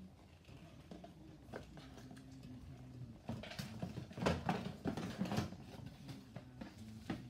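Rustling and light knocking of a cardboard box and papers being handled. The sound starts faint and picks up about three seconds in into a quick run of crinkles and taps.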